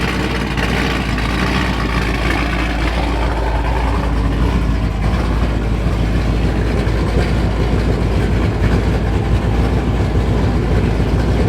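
Dodge Scat Pack's 6.4-litre HEMI V8, fitted with a Stage 6 aftermarket camshaft, running steadily on a preliminary tune while being data-logged for a better tune file.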